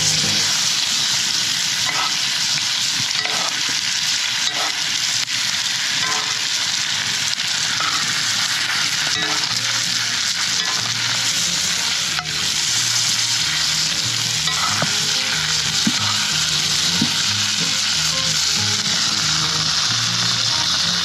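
Flour-dredged dove pieces frying over an open fire: a steady sizzle with scattered small pops and crackles.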